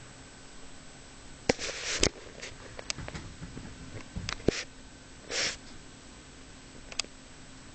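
Sleeping cat snuffling: a few short breathy sniffs among several sharp clicks, over a faint steady hum.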